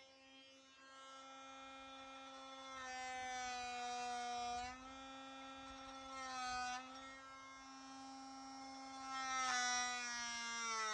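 Einhell 18-volt cordless oscillating multi-tool running with a steady buzz, getting louder three times as its blade bites into wood.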